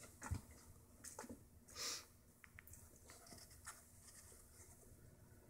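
Faint taps and clicks of cats' paws batting at a plastic ring-track cat toy, with a brief scratchy sound about two seconds in.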